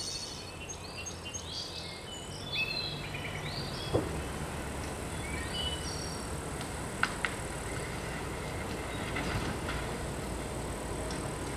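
UAZ Buchanka van engine running low as the van creeps along a dirt forest track, slowly growing louder as it comes closer, with birds chirping over it in the first few seconds. A sharp knock about four seconds in, and two quick clicks around seven seconds.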